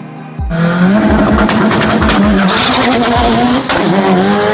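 Turbocharged Subaru STI drag car at full throttle on the strip, its engine note climbing in steps, cutting in suddenly about half a second in. It is mixed over a music track with a steady thumping beat.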